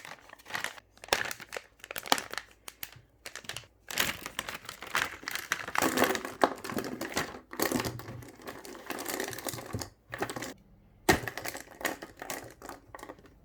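Packaging crinkling and rustling in irregular bursts as a glitter pen set is unwrapped by hand, with one sharp click near the end.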